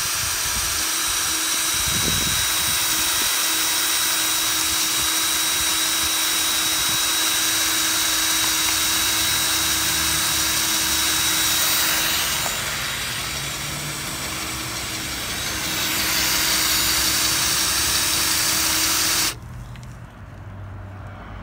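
Power drill running steadily as it turns the 2-inch auger that feeds salt out of the dispenser spout. It eases off for a few seconds past the middle, then stops abruptly near the end.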